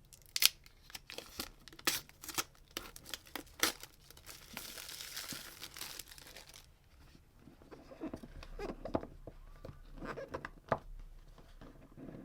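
AirPods Pro box packaging being opened by hand: a run of clicks and handling knocks, then a steady tear about four and a half seconds in that lasts about two seconds, followed by softer rustling and handling of the box.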